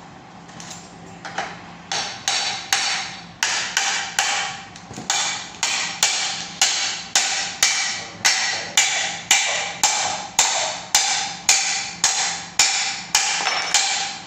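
A hammer striking the steel of a buggy axle assembly over and over, about two to three blows a second, each blow ringing like struck metal. A few lighter knocks come first, then the steady hammering starts about two seconds in.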